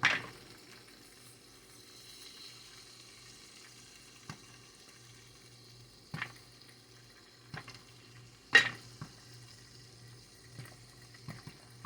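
Electric stirring popcorn popper with the kernels just starting to pop: a faint sizzle of hot oil over a low hum, broken by a scattering of sharp pops, the loudest about eight and a half seconds in.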